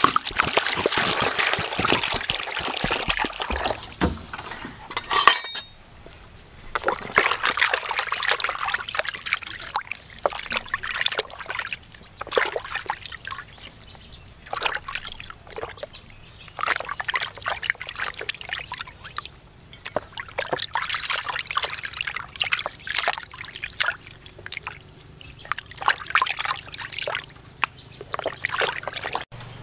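Water pouring into a plastic basin over a whole plucked black chicken for about five seconds. Then hands rub and slosh the chicken in the basin water, with irregular splashes.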